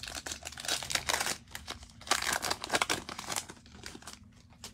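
Plastic wrapper of a trading-card pack crinkling and tearing as it is opened, in two spells of crackly rustling.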